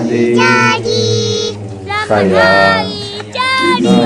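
Music with singing: several high-pitched sung notes held in turn over a steady low accompaniment.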